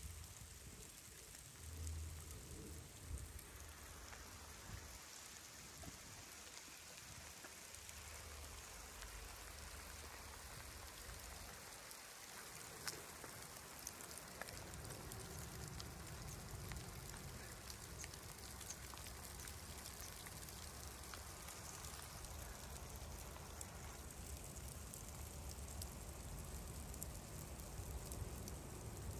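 Steady rushing hiss of a mountain stream's water, dotted with fine ticks and splashes, over a low rumble that comes and goes.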